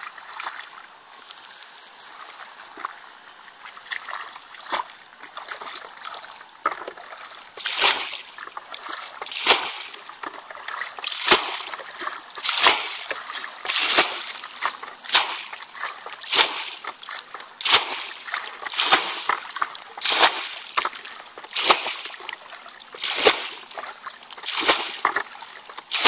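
Water being bailed out of a shallow dammed ditch with a plastic basin: a scoop, then a splash as each load is thrown over the mud dam. The throws come about once a second and get louder and steadier after about eight seconds.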